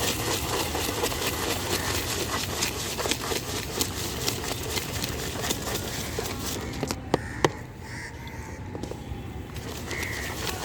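Rapid clatter of jhalmuri being mixed in a metal container, puffed rice and spoon clicking against the tin, over steady street noise. It gives two sharper knocks about seven seconds in, then thins out.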